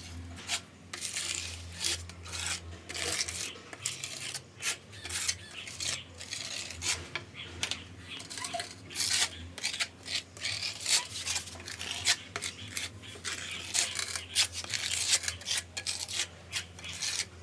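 Repeated rubbing and scraping strokes worked by hand on the part, irregular at about one to three a second, over a steady low hum.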